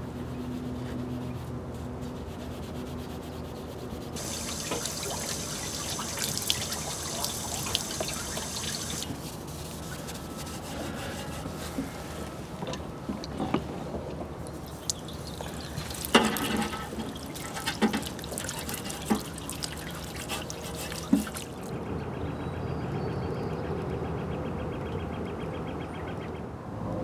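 Water spraying from a hose nozzle and splashing over a stainless steel barbecue as it is rinsed, with scattered sharp knocks and clanks against the metal. The sound changes abruptly a few times.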